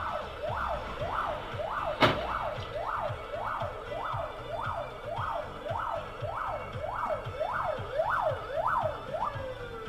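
Emergency vehicle siren in a fast yelp, its pitch sweeping up and down about twice a second, with a single sharp click about two seconds in; near the end the siren winds down in one falling glide.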